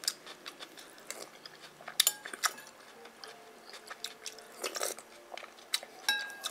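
A person chewing food close to the microphone, with wet mouth clicks and smacks at irregular intervals. The loudest come about two seconds in and just before five seconds.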